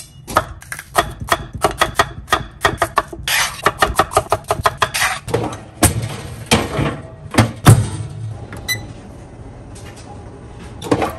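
Chef's knife cutting a red bell pepper into thin strips on a wooden cutting board: a fast run of crisp knocks against the board, several a second. Then a few heavier metal clunks from a countertop oven's wire rack and mesh tray being slid in and out, and a short beep.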